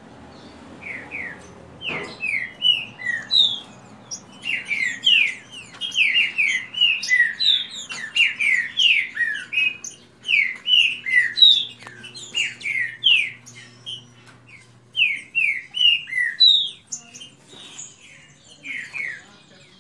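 Caged green-winged saltators (trinca-ferro) counter-singing in a song duel: fast, repeated phrases of short, clear, downslurred whistles, starting about a second in, with a brief pause partway through and thinning near the end.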